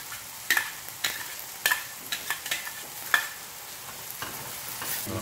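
Julienne vegetables sizzling in a stainless-steel sauté pan while a metal turner stirs them, clinking and scraping against the pan at irregular intervals over a steady hiss.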